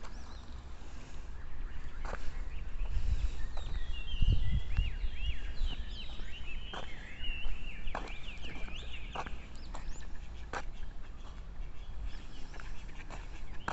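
Birds calling: a run of quick, high twittering chirps from about 3 to 10 seconds in, and several short sharp calls scattered through it. A low wind rumble on the microphone swells around 4 seconds in.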